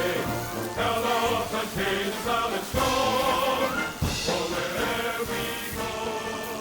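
Background music with choir-like singing.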